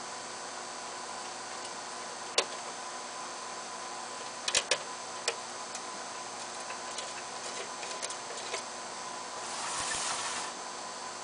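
Sharp clicks and taps of small metal parts and hand tools being handled during reassembly of an ozone generator, a loud one about two seconds in, a quick cluster near the middle and lighter ticks after, then a brief rustle near the end, over a steady faint hiss and hum.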